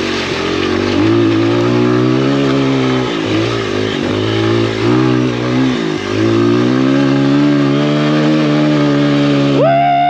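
Honda XR100R's small air-cooled four-stroke single-cylinder engine pulling steadily under throttle as the dirt bike is ridden up a rocky trail, with the throttle eased off briefly three times. A higher-pitched rev comes in right at the end.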